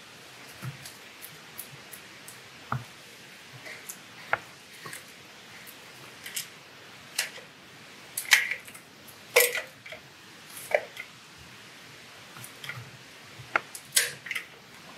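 Caulking gun loaded with a plastic tube of clear silicone sealant being handled and worked: scattered, irregular clicks and knocks of the gun's metal frame and plunger rod against the tube. The tube seems stuck, not yet feeding sealant.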